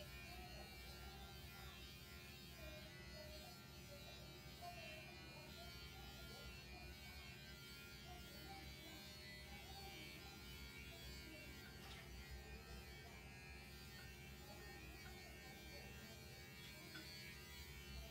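Electric pet hair clipper running with a faint, steady buzz while clipping a cat's fur short.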